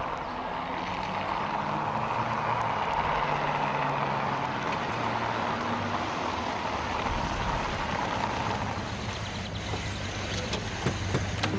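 A car driving up, a steady rush of engine and tyre noise that fades as it comes to a stop, with a few sharp clicks near the end.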